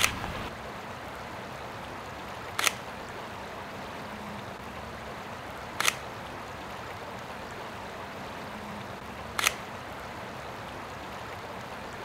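Four sharp camera shutter clicks, about three seconds apart, over the steady rush of a flowing stream.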